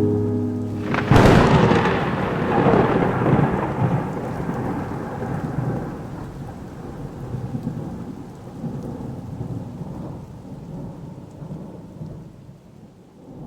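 Dubbed-in thunder sound effect over rain: a sharp thunderclap about a second in, then a long rumble that slowly dies away.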